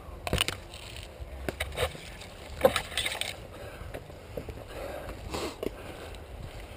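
Footsteps crunching through dry leaves and brush, with irregular snaps and rustles; the loudest crunch is near the middle.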